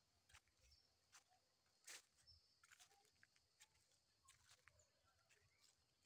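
Very faint footsteps crackling on dry leaf litter, irregular sharp clicks with a few soft low thumps.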